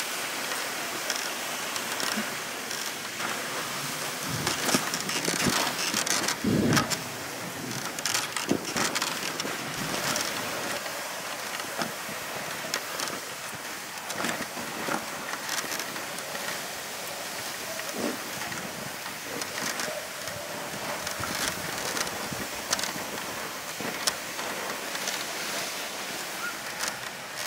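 Wooden dog sled gliding over snow behind its team, a steady hiss of the runners with wind buffeting the microphone. Scattered clicks and knocks run through it.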